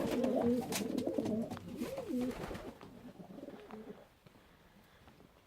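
Pigeons cooing, a few wavering coos that fade out about two and a half seconds in.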